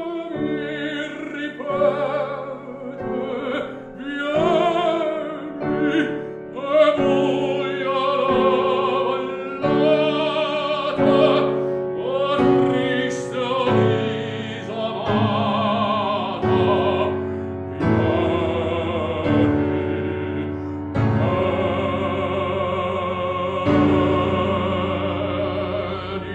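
Operatic baritone singing in Italian with strong vibrato over piano chords, a classical art song.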